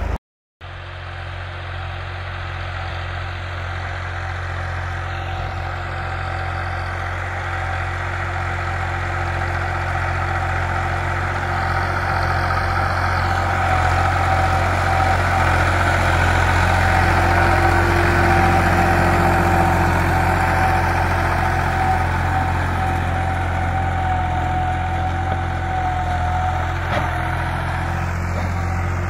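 Massey Ferguson 260 turbo tractor's diesel engine running steadily under load, pulling an eleven-tine cultivator through the soil. The sound drops out for about half a second just after the start.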